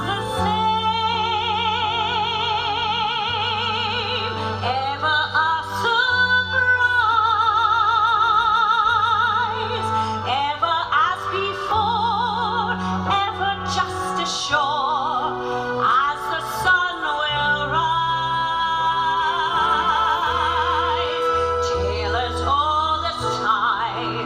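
Musical-theatre song: a high operatic voice singing long held notes with wide vibrato over a musical accompaniment with steady bass notes.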